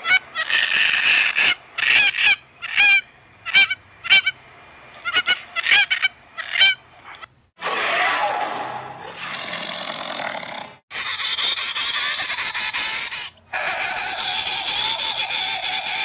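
Double-striped thick-knee calling: loud, repeated short piping calls in quick clusters, each rising then falling in pitch. About halfway the calls stop and a harsh, dense hissing noise takes over, with two brief breaks.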